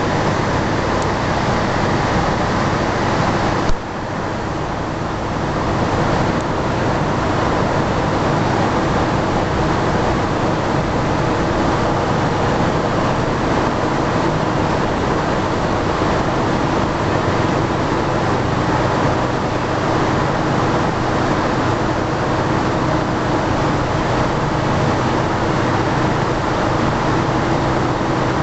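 Sulzer Hydro Francis turbine unit running in its powerhouse: a loud, steady machine drone with several steady hum tones over it. A single sharp knock comes about four seconds in, and the drone is a little quieter for a second or two after it.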